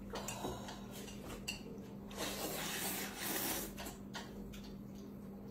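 Noodles being slurped with chopsticks from a bowl: a long slurp from about two to four seconds in, with light clicks of chopsticks on tableware around it and a faint steady hum underneath.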